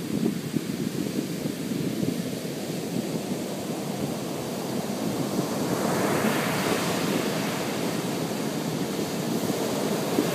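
Ocean surf on the beach with wind rumbling on the microphone; about six seconds in a wave washes up and the hiss grows brighter.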